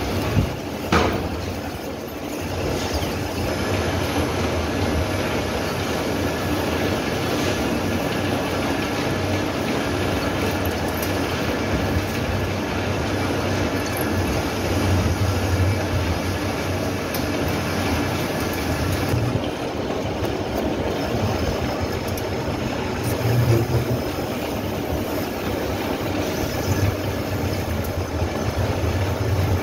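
Metal-turning lathe running under cut, its tool shaving long curling chips off a large spinning workpiece: a steady mechanical clatter over a low drive hum, with a couple of sharp knocks in the first second or so.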